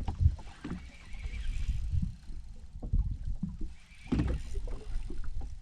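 Water lapping and slapping against the hull of a small fishing boat, an uneven low rumble with a sharp knock just after the start and a louder slap a little past four seconds in.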